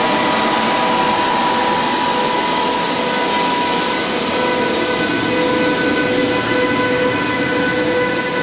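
Locomotive-hauled passenger train moving along the platform: a steady rumble of wheels on rail with a high whine of several steady tones over it.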